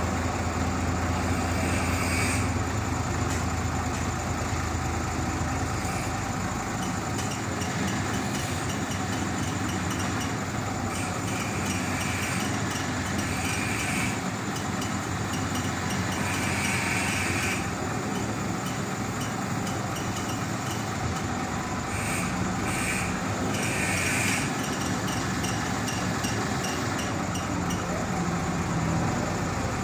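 Diesel truck engine running steadily, powering the hydraulic knuckle-boom crane mounted on the truck while the boom is moved. Its low hum drops away about six seconds in.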